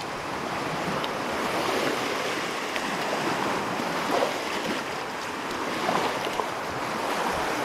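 Small waves lapping and washing over a sandy shoreline at the water's edge, a steady rush of water.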